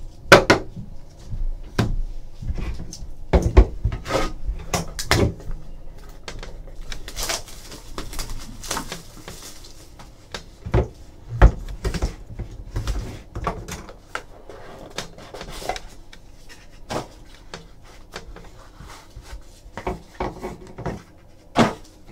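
Knocks, taps and clicks from handling and opening 2016 Leaf Ultimate Draft trading-card boxes on a tabletop, with a stretch of hissy scraping or sliding a third of the way in.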